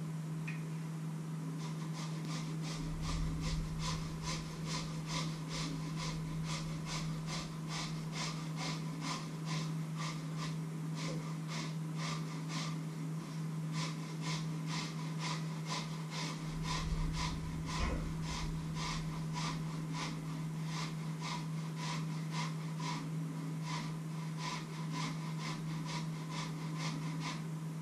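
Rhythmic scraping strokes of a kitchen utensil worked by hand in a metal bowl, about two or three a second, starting about two seconds in and keeping an even pace. A steady low hum runs underneath.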